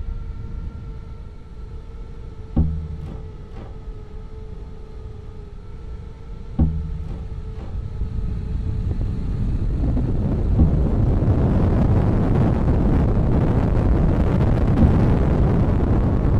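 Sound design under the opening titles: two deep booming hits about four seconds apart over a steady drone, then a dense rumble that swells up about ten seconds in and stays loud.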